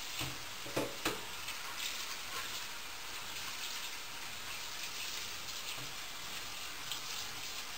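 Steak pieces sizzling steadily in a hot pan in their own juices, with a couple of light knocks about a second in.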